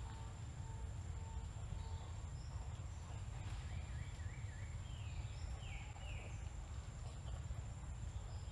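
Forest ambience: a steady high insect buzz over a low steady rumble, with a few short chirps around the middle.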